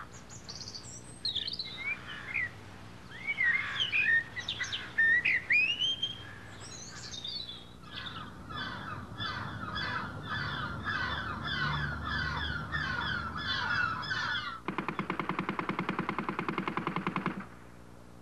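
Songbirds singing, first varied chirps and whistles, then a run of evenly repeated calls. About fifteen seconds in the birds stop and a machine gun fires rapidly and evenly for about three seconds.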